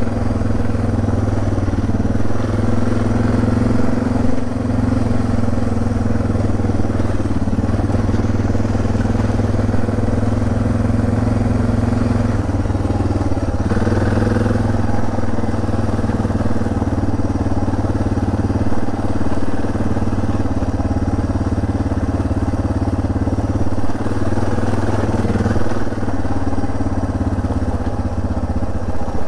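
Suzuki DR650's single-cylinder engine running at steady revs while the bike is ridden, with a brief change in pitch about halfway through.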